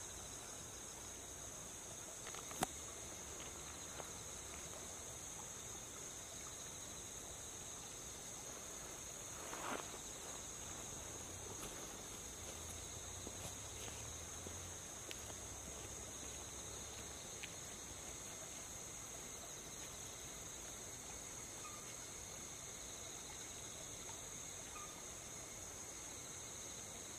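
Steady, faint, high-pitched chorus of night insects chirping without a break. A sharp click comes about two and a half seconds in, and a brief soft rustle near ten seconds.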